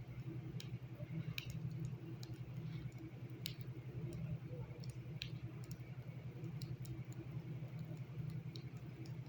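Sharp, irregular clicks and ticks, roughly one a second, over a steady low hum.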